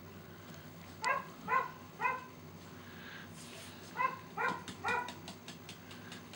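Samoyed puppy yipping: three short high yips in quick succession about a second in, and three more about four seconds in.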